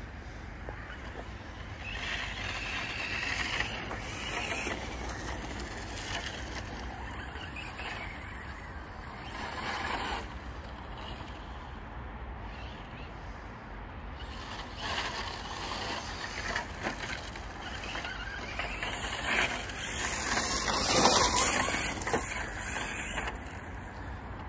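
Electric 1/8-scale short-course RC truck with a SkyRC Toro 2600KV brushless motor on a 4S lipo, driving on loose gravel: motor and drivetrain whine and tyres crunching on stones, coming in several bursts as it accelerates and passes, loudest about 21 seconds in.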